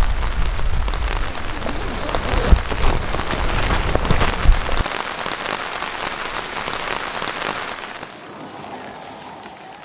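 Rain pattering on a tent's fabric: a dense hiss of drops over a deep rumble, with two sharp thumps in the first half. The rumble drops away about five seconds in, and the rain grows quieter near the end.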